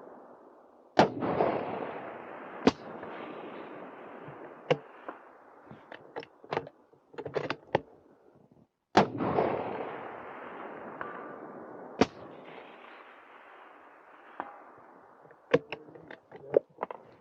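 Two shots from a suppressed .223 Remington 700 bolt-action rifle, about eight seconds apart, each followed by a long rolling echo that fades over several seconds. Between and after the shots come sharper single knocks and runs of quick metallic clicks, as the bolt is worked.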